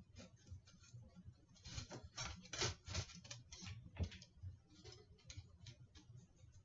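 Pliers bending cut wire coat-hanger ends flat against a cardboard square: irregular clicks, taps and scrapes, the sharpest a little after two and a half seconds and about four seconds in.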